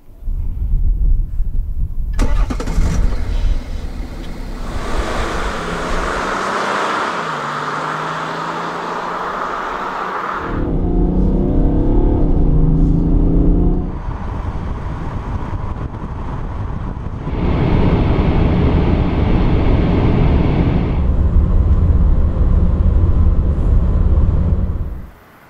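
BMW 530d xDrive's 3.0-litre twin-turbo straight-six diesel heard from inside the cabin while driving, with its pitch rising under acceleration. The sound comes in short clips that change abruptly every few seconds.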